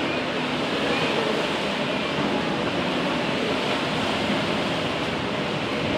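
Many motorboat and jet-ski engines running at speed together with their wake spray, a steady, even wash of noise in which no single engine stands out.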